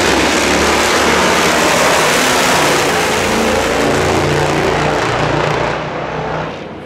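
Two drag-racing motorcycles running flat out down the quarter-mile after the launch, a loud, steady engine blare that fades near the end as the bikes get far down the track.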